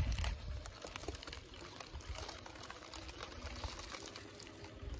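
Faint rustling and handling noise with scattered small clicks over a low rumble.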